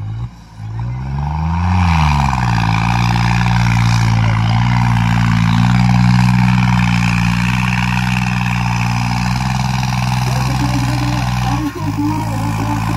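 New Holland tractor's diesel engine revved hard: the pitch climbs and falls back within the first two seconds, then holds at high, steady full-throttle revs, with a brief dip near the end.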